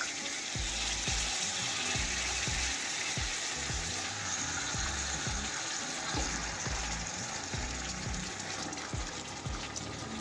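Raw chicken pieces sizzling and frying in a pot of hot onion-tomato masala as they are added, with a steady hiss and small clicks and knocks. Background music plays under it.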